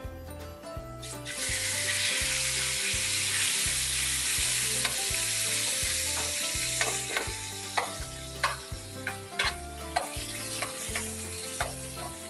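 Raw chicken pieces hit hot oil in a stainless steel frying pan and sizzle loudly from about a second in, a batch being seared to brown it. From about halfway on, a metal spoon stirring the pieces clicks and scrapes against the pan while the sizzle carries on more quietly.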